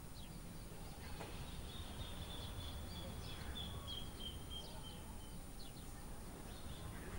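Faint birds chirping, short high falling chirps again and again, with a thin high note held for about four seconds from about a second in, over a low steady rumble of outdoor air.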